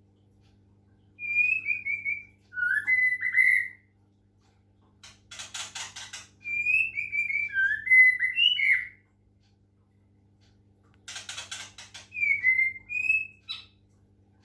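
White-rumped shama singing: three bursts of clear, sliding whistled phrases, with short harsh rattling stretches between them.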